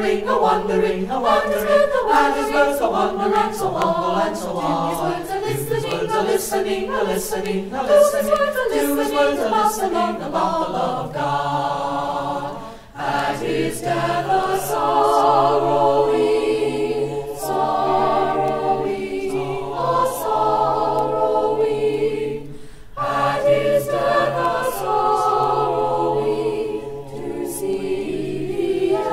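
Mixed high school choir of sopranos, altos, tenors and basses singing a Christmas carol, in phrases with two short breaths between them. From about eleven seconds in, a low note is held steadily under the moving upper voices.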